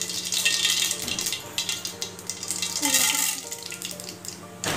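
Mustard seeds and split dal frying in hot oil in a nonstick kadai for a tempering: a steady sizzle with many small crackling pops, over a faint steady low hum.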